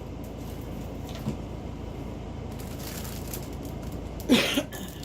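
Steady low room hum with faint rustling. Near the end comes a short, loud vocal noise, a throat-clear.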